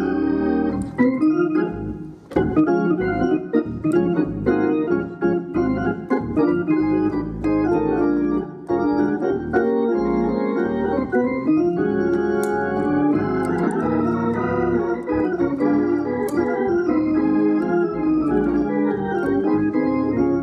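Organ playing simple gospel hymn-style chords, with a bouncing bass line and the chords keeping the same bounce.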